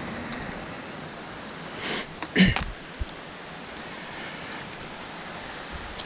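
Steady rush of a mountain stream running below the trail. Between two and three seconds in come a short, loud breathy burst and then a sharp knock.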